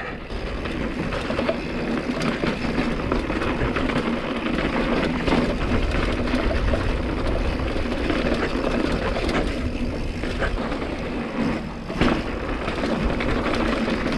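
Hardtail mountain bike rolling down a rough dirt road, its tyres rumbling over rock and gravel and the bike rattling, with wind noise on the camera's microphone.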